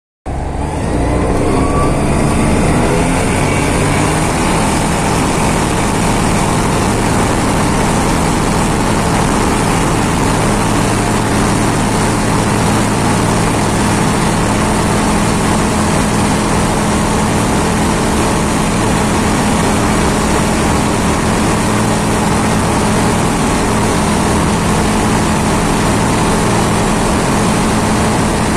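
Aeroprakt A22 L2 ultralight's engine and propeller at full takeoff power, heard from inside the cockpit. It starts abruptly, rises in pitch over the first few seconds, then holds a steady drone through the takeoff roll and climb.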